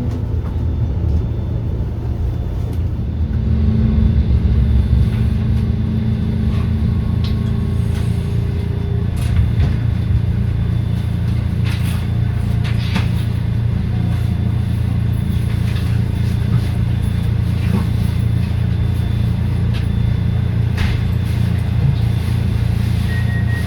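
SEPTA Route 34 trolley (streetcar) running along its rails: a steady low rumble of wheels and running gear. About three seconds in, a traction-motor hum joins for several seconds, and sharp clicks and knocks come every so often later on.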